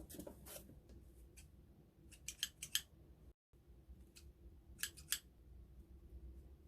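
Typing on a mechanical keyboard with lubed linear Gateron switches, DSA keycaps and a foam-dampened anodized aluminium case (GK64X). Keystrokes come in short clusters: a few at the start, a quick run of about five about two and a half seconds in, and three more near five seconds.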